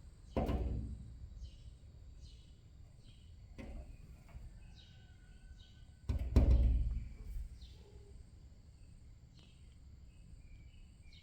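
Small songbird giving short high chirps about once a second, with two loud low rumbles about half a second and six seconds in, the second one the loudest.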